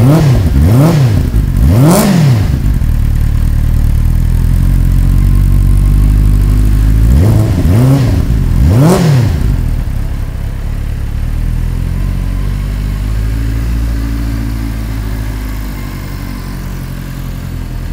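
Benelli TNT 600i's 600 cc inline four-cylinder engine revved with quick throttle blips: three sharp revs in the first two seconds, two more about eight and nine seconds in. It settles back to idle between the blips, and the idle quietens in the last few seconds.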